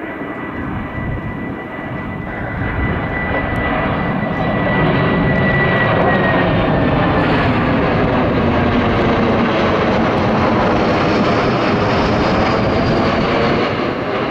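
Jet noise from the Embraer KC-390's two IAE V2500 turbofans as the aircraft flies overhead. It grows louder over the first few seconds and then holds steady and loud. A thin high whine drops slightly in pitch about six seconds in.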